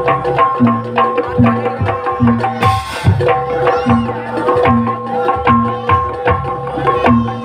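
Live jaranan gamelan music: drums beat a steady rhythm, deep low strokes alternating with sharp slaps, over held melodic tones, with a short hissy crash about three seconds in.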